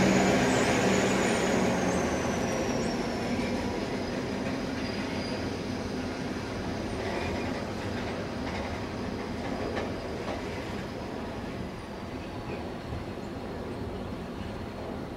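Freight train passing: the 81 class diesel locomotive's two-stroke V16 engine fades away as it pulls off, leaving the steady rolling rumble of loaded container wagons. A thin high squeal runs over it and slowly drifts lower in pitch.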